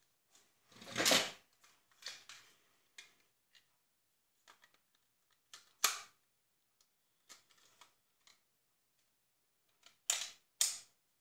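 Hard plastic handling clicks and snaps as a FuriBee action camera is fitted into its clear plastic waterproof housing. A longer, louder scrape about a second in, then scattered light clicks, a sharp snap near the middle and two sharp snaps near the end.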